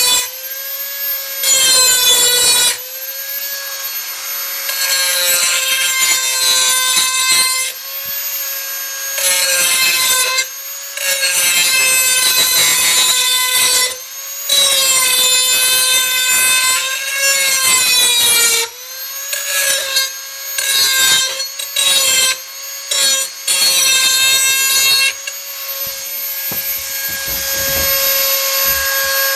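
Dremel 4000 rotary tool running with a steady high whine while its bit is pressed again and again against a steel hoe blade to sharpen it, giving harsh grinding stretches of a few seconds each. The motor's pitch sags slightly as each grinding stretch begins.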